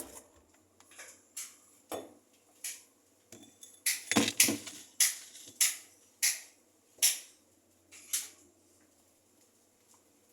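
A dozen or so sharp knocks and clinks of hard objects being handled, at uneven spacing and closest together near the middle, stopping about two seconds before the end.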